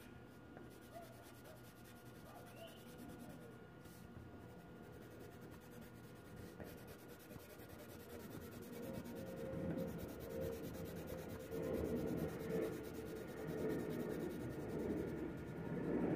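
Colored pencil shading on paper: a scratchy rubbing of quick back-and-forth strokes that grows louder in the second half.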